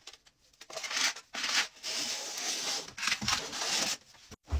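Metal spatula scraping against a brick wall in a series of short rasping strokes.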